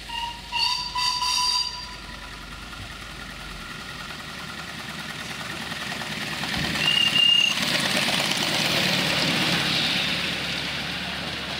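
Miniature steam locomotive's whistle sounding three short toots, then the locomotive and its riding cars running past on the raised track with a rumble that swells and fades. A brief high squeal comes about seven seconds in.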